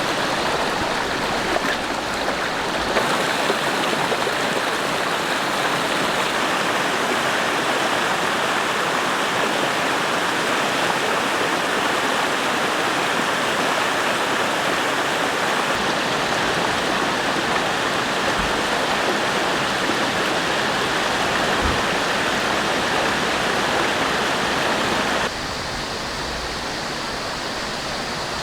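Mountain valley stream rushing, a loud, steady water noise. Its tone shifts abruptly about three seconds in, and near the end it steps down and becomes a little quieter.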